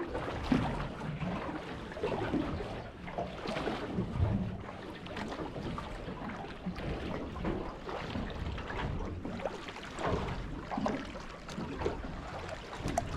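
Water slapping against the hull of a small fishing boat, with irregular soft knocks.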